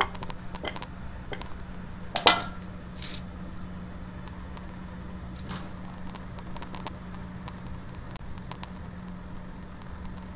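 Kitchen handling sounds: a rolling pin and utensils tapping and clicking on a stone rolling board, with one sharp knock about two seconds in, over a steady low hum.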